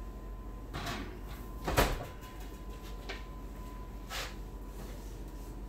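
Oven rack and pie tins knocking as a pie crust is set into an open oven and another taken out: a few separate knocks, the loudest about two seconds in.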